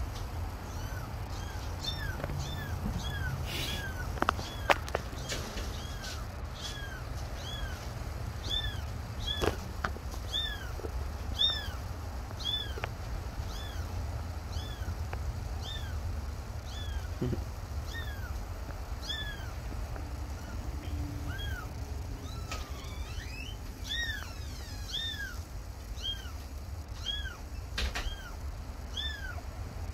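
A young kitten mewing over and over: short, high cries about one a second, with a brief pause about two-thirds through. A low steady rumble runs underneath.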